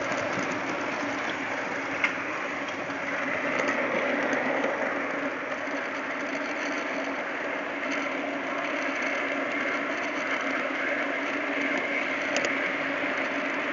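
TT-scale model train running, heard from on board one of its freight wagons: a steady running noise of wheels on track and the locomotive drive, with a sharp click about two seconds in.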